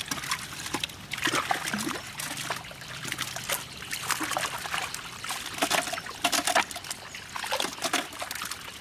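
Pond water splashing and trickling in irregular small bursts, as wet fish and water are handled at the net.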